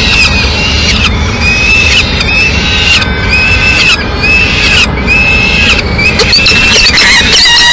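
Peregrine falcons calling: short, slurred high-pitched calls repeated about once a second, coming faster near the end, over a steady low rumble of city traffic.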